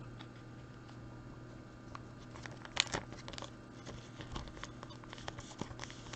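Trading cards being handled: light clicks, taps and rustles of card stock, with a cluster of louder clicks a little under halfway through, over a faint steady electrical hum.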